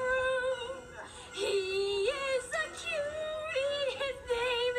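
A girl singing a song in a high voice, holding wavering notes and stepping between pitches, heard through a laptop's speakers.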